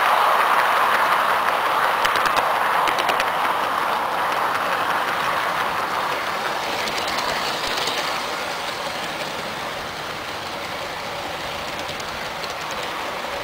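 Garden-railway model train rolling along its track, heard from on board: a steady rolling rattle of wheels on the rails, with a quick run of clicks about two to three seconds in, getting gradually quieter.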